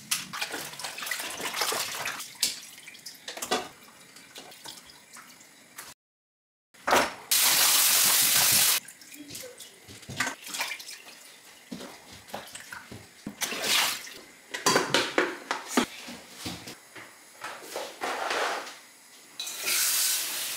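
Raw lamb ribs being washed with salt in a bowl of water at a stainless steel kitchen sink: hands rubbing and splashing the meat, with the tap running in a steady rush for about two seconds partway through.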